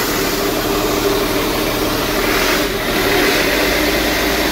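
A truck's Cummins diesel engine idling steadily, with a noisy hiss over the engine note. The driver suspects the noise comes from a leaking or loose pipe at the turbo.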